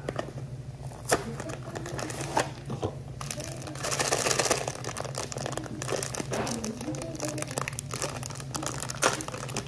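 Crinkling and rustling of the plastic bag of Jiffy mix being handled and opened, louder from about three to five seconds in, with scattered sharp clicks. A steady low hum runs underneath.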